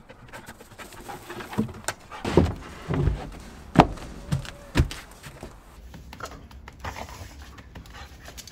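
A handful of sharp wooden knocks and thumps from the plywood dog house's shingle-covered roof being set and pressed down, the loudest about four seconds in, with a dog panting.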